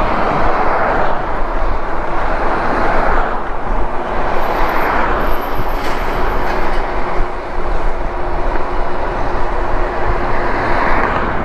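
Steady rush of wind and road noise while riding an e-bike, swelling louder several times.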